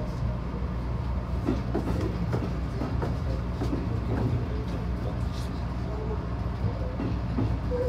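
HB-E300 series hybrid railcar running along the track, heard from inside the car: a steady low drone from the drive and running gear.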